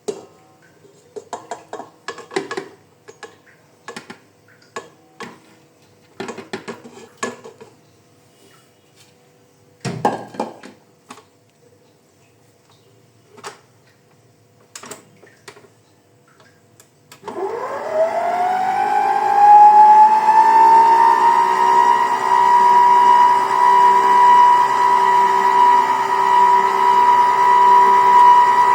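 Scattered clinks and knocks of kitchen utensils and a bowl, then an electric mixer starts up about two-thirds of the way through. Its whine rises in pitch and settles into a steady running hum as it whips cream and sugar for icing.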